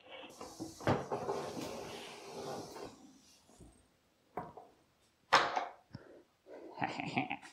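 A few seconds of rustling noise, then several separate wooden knocks and clunks from handling the wall-mounted air hose reel. The sharpest knock comes about five and a half seconds in.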